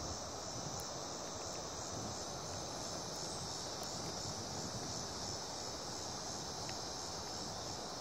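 Steady high-pitched chorus of insects, crickets or similar summer insects, over a soft even rushing of river water and breeze.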